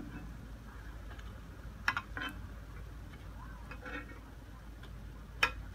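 A metal spoon clinking against a frying pan as fried fishballs are scooped out of the oil: a couple of sharp clinks about two seconds in and a louder one near the end, over a faint low hum.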